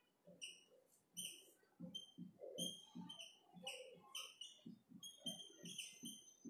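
Marker pen squeaking on a whiteboard while words are written: a faint run of short squeaky strokes, each with a soft tap, a few a second.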